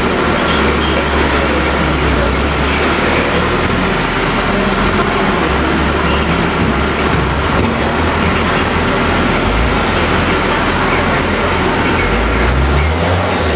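Skid steer loader's engine running steadily as the machine works, with a low rumble that swells and eases.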